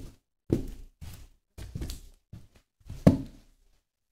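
High-heeled pumps with stacked heels stepping on and grinding a hamburger and fries on a steel diamond-plate floor. There is a run of heel knocks and soft squashes, about one every half second. The loudest comes a little after three seconds in.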